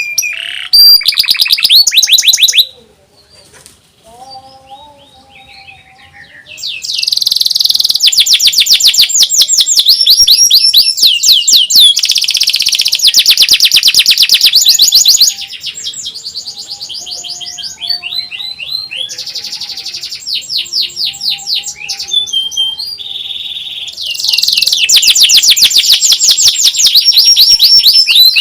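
Domestic canary singing a loud 'nyerilik' style song: long, very fast trills of repeated high notes. It breaks off for about three seconds early on, runs softer in the middle, and comes back at full volume near the end.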